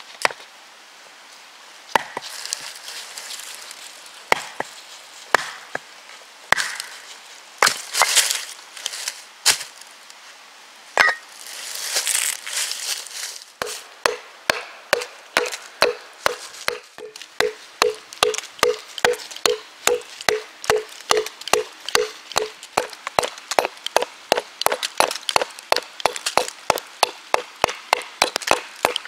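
A knife batoned down through a short log round: a few separate knocks with the wood cracking as it splits. From about 13 seconds in, a steady run of sharp knocks, about two to three a second, each with a short ring: wooden wedges being driven into a felled log with the back of a Wetterlings axe.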